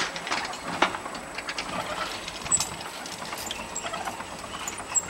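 Railway level-crossing boom barrier lifting, with irregular clicks and knocks from its mechanism over a low steady background.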